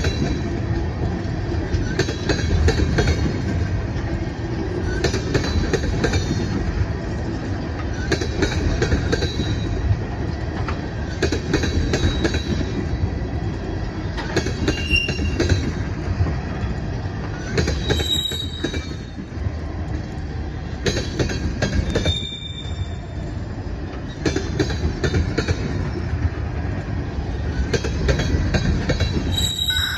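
Freight train of tank cars rolling past: a steady rumble of steel wheels on rail, with clicks coming in pairs every few seconds as the cars' wheelsets cross a rail joint. Short, high wheel squeals are heard now and then.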